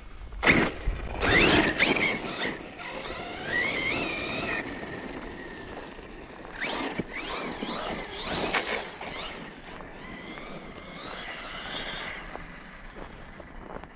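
The brushless electric motor of an ARRMA Siren 6S 1/10-scale 4WD RC truck whines as the throttle is worked, its pitch rising and falling in repeated bursts. It is loudest in the first couple of seconds and again about eight seconds in.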